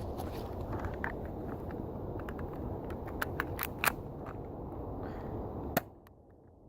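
Rustling, rumbling handling noise with a few sharp clicks, three or four close together around the middle and one more near the end, after which the sound cuts out abruptly.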